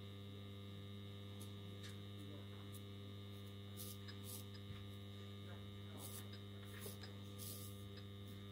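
Steady mains hum from a homemade transformer battery charger, running under load as the power supply for zinc electroplating, with a few faint clicks scattered through.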